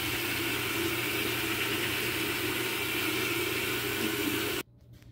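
Bathroom sink tap running steadily into the basin, a constant rushing hiss that cuts off abruptly near the end.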